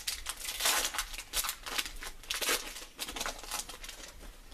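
Foil wrapper of a Pokémon XY booster pack being torn open and crinkled by hand: a run of crackly rustles, loudest about a second in and again about two and a half seconds in, dying away near the end.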